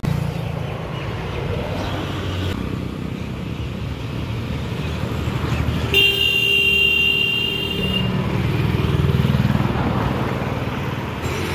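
A car horn sounds once, held for about two seconds, about six seconds in, over a steady low engine rumble.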